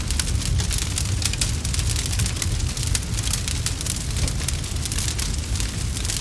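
Wood fire in a fireplace crackling, with many quick sharp pops and snaps over a steady low rumble.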